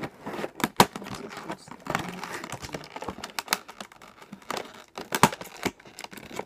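Stiff clear plastic blister packaging crinkling and crackling as it is handled and worked open, with sharp, irregular snaps and clicks scattered throughout.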